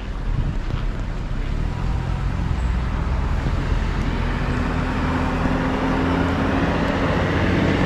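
Road traffic: a motor vehicle running close by, its low engine hum and road noise growing louder over the last few seconds.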